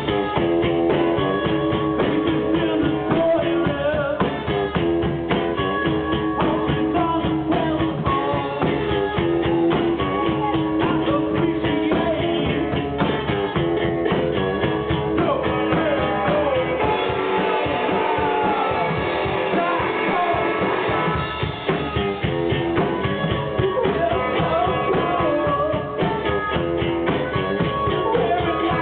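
Live rock band playing: electric guitar over a drum kit and bass. About two-thirds of the way in, the drums and low end drop out for a few seconds, leaving guitar lines that slide in pitch, before the full band comes back.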